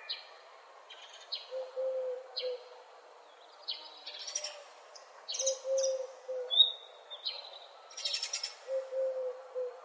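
Outdoor dawn birdsong: several songbirds chirping, trilling and whistling in short phrases, with the busiest, loudest chirping about halfway through and again near the end. Underneath, a low note repeats in short groups of two or three, like a distant hoot or coo.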